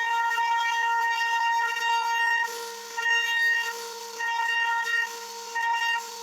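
CNC router spindle whining at a steady high pitch as it carves wood, the cutting noise rising and falling as the bit moves in and out of the cut.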